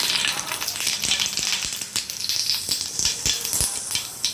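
Cumin seeds sizzling in hot oil in a frying pan: a dense hiss with many small crackling pops as the seeds temper.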